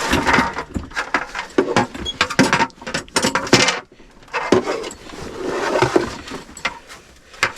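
Irregular knocks, clicks and rustling from a freshly landed crappie being handled at the ice hole, with several short bursts of scuffling noise.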